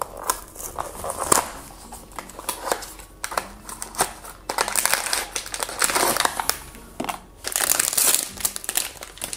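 Hands tearing open a small cardboard blind box, then pulling out and tearing a foil blind bag. The sound is irregular crinkling and rustling with sharp clicks, denser and louder in the second half.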